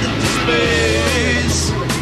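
Rock music with electric guitar and bass, playing between sung lines.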